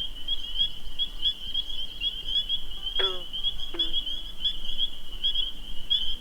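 A chorus of spring peepers: a dense, unbroken mass of high peeping. Two short downward-sliding calls cut through it about three seconds in and again just under a second later.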